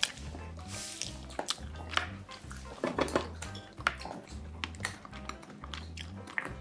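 Wooden chopsticks clicking and scraping against stainless steel bowls and a lid, with short sharp taps throughout, over soft background music with a steady repeating bass.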